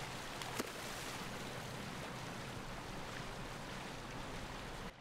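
Water rushing and splashing steadily around an electrofishing boat's electrode booms as the boat moves, over a low steady engine hum. A sharp click sounds about half a second in, and the sound cuts off abruptly near the end.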